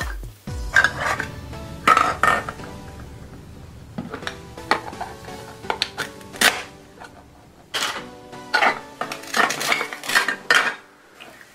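Toy velcro tomatoes being cut apart with a plastic knife on a plastic cutting board: a series of short velcro rips and knife clacks on the board. Near the end the plastic pieces clatter into a glass bowl.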